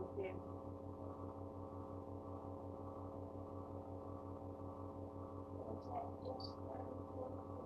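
Steady electrical hum with a stack of overtones, unchanging throughout, with a few faint brief sounds about six seconds in.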